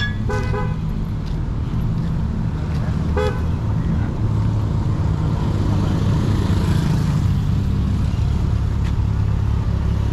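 Road traffic with engines running close by, and a vehicle horn giving two short toots: one just after the start and one about three seconds in.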